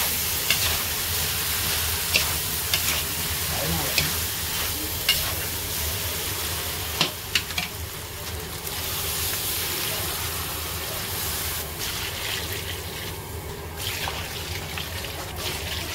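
Potato and lentil sabzi sizzling in an iron kadai while a metal spatula scrapes and clacks against the pan in sharp knocks. Near the end, water is poured from a mug into the hot pan.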